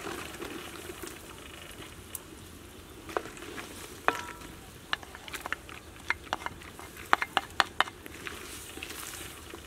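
Cut water lily stems tipped into a wok of simmering soup, then a wooden spoon stirring in the wok, knocking against its metal side in a quick string of sharp clacks, a few ringing briefly.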